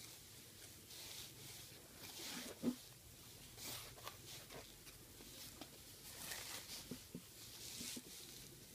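Faint rustling of lining fabric and a crocheted yarn panel being handled and smoothed flat by hand, in short repeated swishes, with one soft knock a little under three seconds in.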